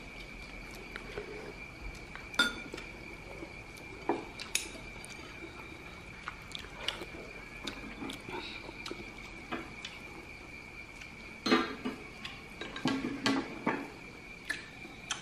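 Spoons and chopsticks clinking and tapping against porcelain bowls and plates while eating. The taps are scattered, with a sharp clink about two seconds in and a denser run of clinks from about eleven to fourteen seconds in.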